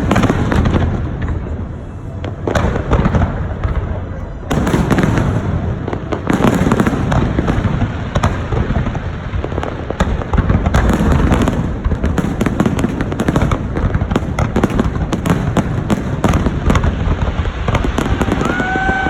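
Aerial fireworks display going off without a break: dense, overlapping booming shell bursts and rapid crackling reports. A short steady whistle tone starts near the end.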